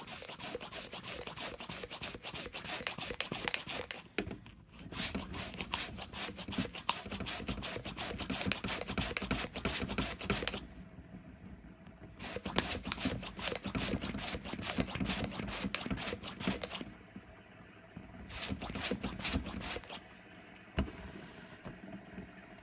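Balloon pump blowing air at a fidget spinner in rapid, even puffs, about four a second, in runs of several seconds broken by short pauses, going quieter near the end.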